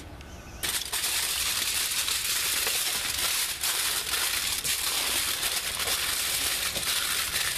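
Aluminium foil crinkling continuously as hands crumple and fold it into a sealed packet, starting about half a second in.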